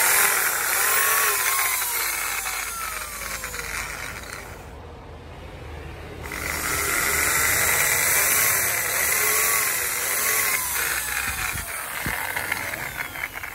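Corded electric drill running with its bit boring into a bamboo stick. It stops briefly about five seconds in, starts again, and dies down over the last few seconds.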